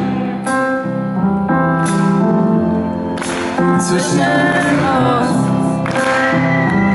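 Live band music with singing, played on stage in a concert hall and recorded from the audience.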